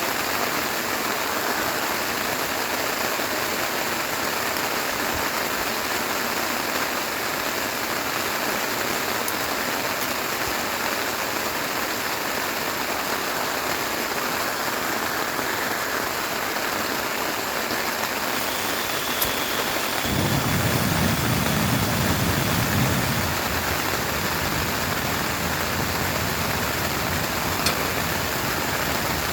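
Steady heavy rain falling, with a low rumble about twenty seconds in that lasts some three seconds.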